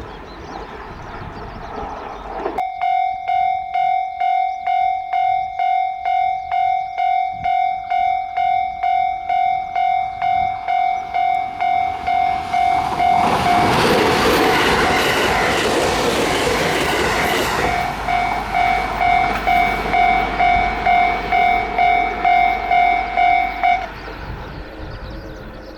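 Japanese level-crossing alarm ringing, an electronic two-note-like 'kan-kan' tone pulsing about two times a second, starting a few seconds in. In the middle a train passes over the crossing, its rushing noise partly drowning the bell for a few seconds, and the alarm stops near the end.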